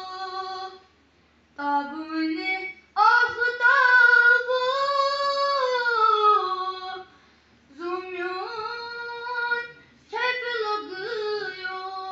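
A boy singing a Naat unaccompanied, in phrases separated by brief pauses, with one long held line starting about three seconds in.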